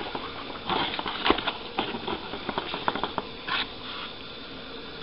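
A spoon clicking and scraping in a mixing bowl as flour is worked into dry bird seed and oatmeal, with scattered small clicks and brief rustles of the seeds.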